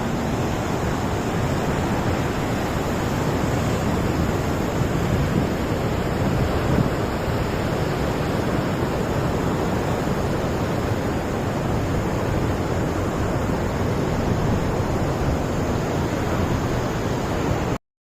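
Steady rushing noise of sea surf and wind, cutting off abruptly near the end.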